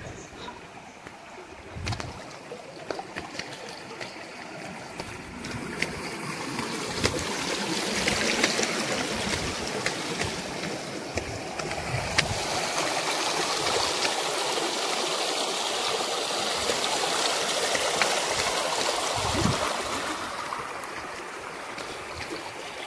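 Shallow rocky stream running and trickling over stones. It grows louder from about six seconds in and eases near the end, with a few sharp knocks in the first seconds.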